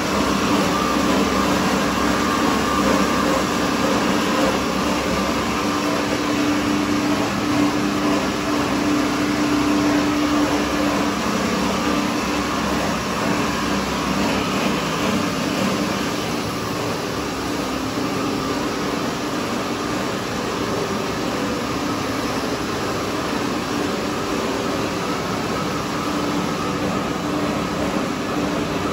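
Cast stretch-film production line running: a steady mechanical drone of motors and rollers with a constant hum. It eases slightly about halfway through.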